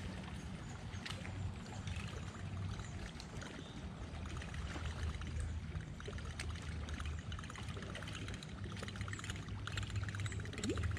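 Water lapping and trickling against a bass boat's hull, over a low steady hum.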